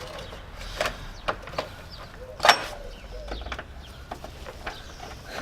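Scattered metallic clicks and taps of a hold-down bracket bolt on a socket wrench knocking against the battery bracket and tray as it is lined up with its hole, with one sharper knock about two and a half seconds in.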